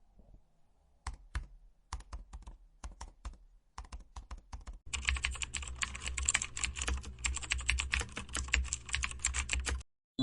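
Keyboard typing: a few separate key clicks at first, then rapid continuous clicking from about halfway through, stopping abruptly near the end.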